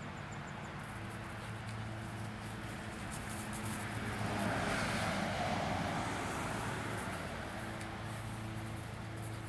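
Steady low background hum, with a motor vehicle passing on a nearby road that swells and fades about halfway through.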